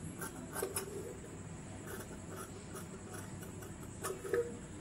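Dressmaking shears snipping through fabric in a few short, separate cuts, trimming close along a stitched seam.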